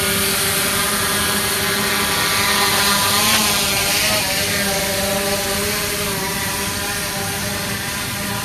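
Multirotor camera drone hovering close by, its propellers giving a steady whine of several stacked tones over a rushing hiss. The pitch wavers up and down a few seconds in as the drone manoeuvres.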